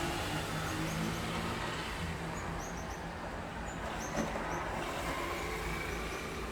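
City street traffic heard from above: a steady rumble with a vehicle engine running near the start and fading away. A few short, high bird chirps come in the middle, and a single short knock sounds about four seconds in.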